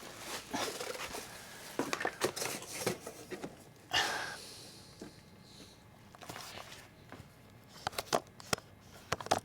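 Irregular clicks, taps and rustles of things being handled, with a louder scrape about four seconds in.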